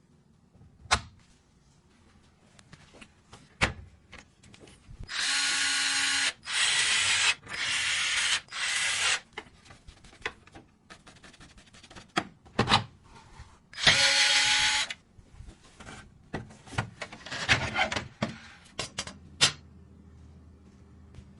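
Electric screwdriver driving small screws. It runs in four short bursts of about a second each, starting about five seconds in, and once more about halfway through. Sharp clicks and knocks of hard plastic and metal parts being handled fall in between.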